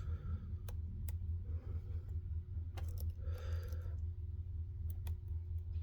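Lock picks working the pins of a Ruko 600 pin-tumbler lock that has spool pins: a handful of small, sharp, scattered metal clicks as the pins are probed and set.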